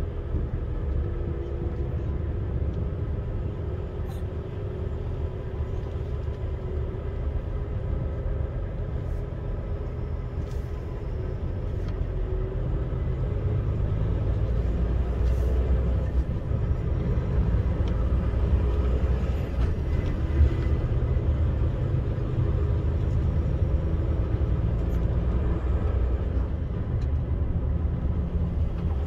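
Steady low rumble of vehicle engines and tyres moving slowly along a narrow lane, getting a little louder about halfway through.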